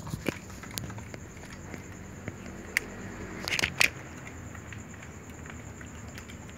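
Cats eating food from dishes on a wooden plank: scattered small clicks and crunches of chewing, with a few louder knocks about three and a half seconds in.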